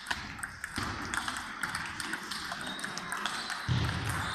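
Table tennis balls clicking off bats and tables in quick, irregular hits from several tables at once. A low rumble comes in near the end.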